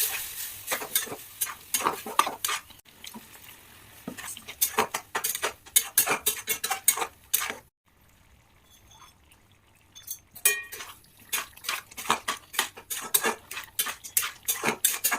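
A cooking utensil clinking and scraping against a pan in rapid, irregular strikes as food is stirred. There is a quieter break about eight seconds in before the clinking resumes.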